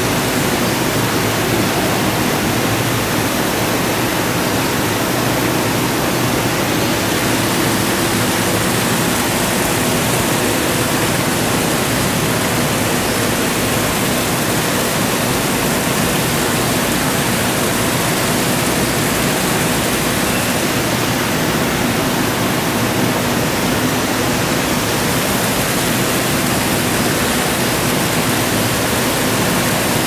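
A steady, even rushing noise that never pauses or changes.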